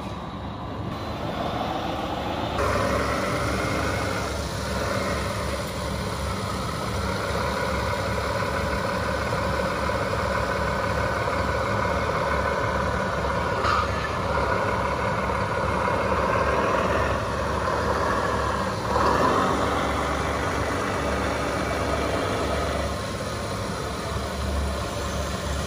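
Diesel truck engine sound from an RC model truck's sound module, running with the revs shifting up and down. It gets louder about two and a half seconds in.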